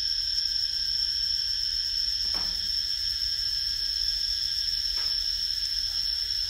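Steady, high-pitched insect chorus droning without a break, with two faint taps a few seconds apart.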